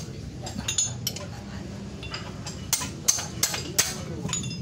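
A series of sharp metal clinks, several with a short ring, as a steel spanner works a bolt on a Toyota Kijang Innova's front steering knuckle and knocks against the metal.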